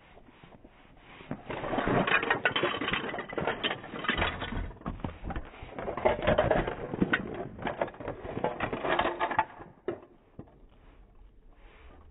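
Miniature plastic dollhouse furniture and kitchen accessories rattling and clattering as the dollhouse is shaken in a mock earthquake, with small pieces tipping over and falling to the floor. The rattling starts about a second and a half in, eases briefly midway and stops about ten seconds in.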